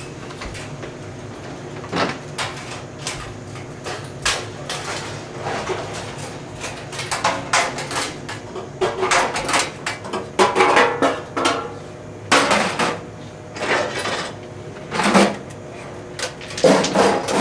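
Irregular metallic clanks and knocks from railway staff working the coupling gear and front gangway of a JR 183 series electric train during coupling. The clanks are sparse at first and come thick and fast from about halfway through. A steady low hum runs underneath.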